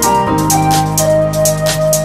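Electronic background music with keyboard chords and a steady drum beat.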